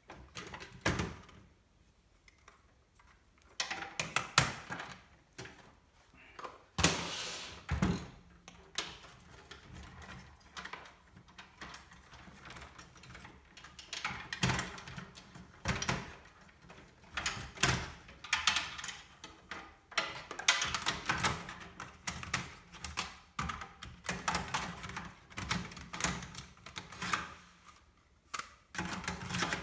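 Irregular clicks, clacks and knocks of computer parts being handled and fitted into a PC case, with a quiet pause about two seconds in.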